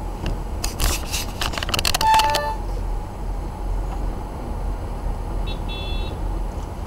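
Low, steady rumble of the car and surrounding traffic heard from inside the car's cabin, with a rapid run of clicks and rattles about a second in that ends in a short pitched tone, and a few brief high beeps near the end.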